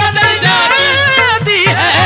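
Qawwali music: a wavering, ornamented sung line over steady instrumental accompaniment.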